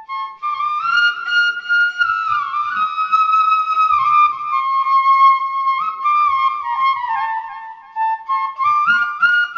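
Background music: a single flute-like wind instrument playing a melody that moves in small steps, with no speech.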